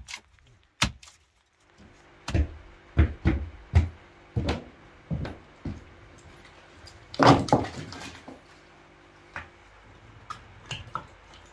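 A hatchet chops into kindling on a wooden block twice. Then come footsteps on a wooden plank floor, a loud clatter of split kindling being set down on the boards about seven seconds in, and lighter knocks of the sticks being arranged near the end.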